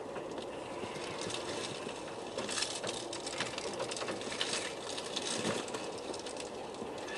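Traxxas TRX-4 Defender RC crawler's electric motor and geared drivetrain whirring at crawling speed, with tyres crunching and small stones clicking and clattering under it as it picks its way over loose rock. The clatter gets busier from about two and a half seconds in.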